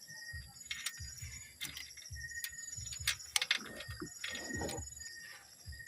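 Scattered metallic clicks, clinks and light knocks of hand tools and engine parts during work on a timing chain. Insects chirp steadily throughout.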